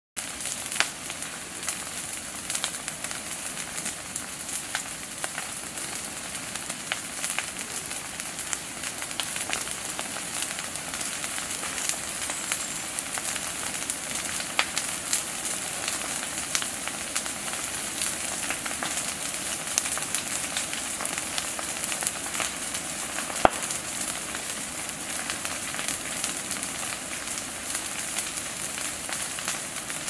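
Rainforest undergrowth on fire: a steady hiss with constant crackling and sharp pops from the burning vegetation. One louder snap comes about three-quarters of the way through.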